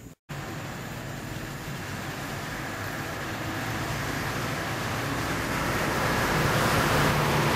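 Rushing noise of road traffic, growing steadily louder, with a low hum in it. The sound cuts out completely for an instant right at the start.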